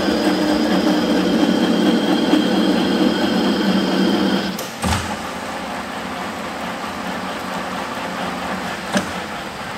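Workshop machine running steadily with a low hum and a faint high whine. About halfway through the hum drops and eases after a knock, and a single click comes near the end.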